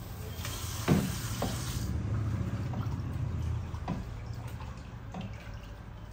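Kitchen tap water running into a pressure cooker pot and shut off after about a second and a half. A sharp knock of the pot comes about a second in. Then comes sloshing as cut chicken gizzard pieces are washed by hand in the water, with a few light knocks.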